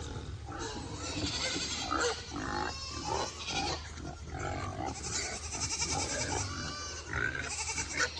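A chorus of farm animals calling over one another, goats bleating among them, with a steady low hum underneath.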